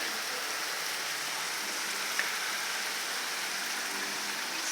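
Steady spring rain falling, an even hiss, with one sharp tick about two seconds in.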